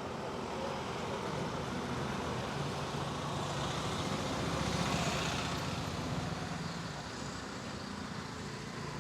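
Street traffic running by, with one motor vehicle's engine growing louder and passing close about halfway through, then fading.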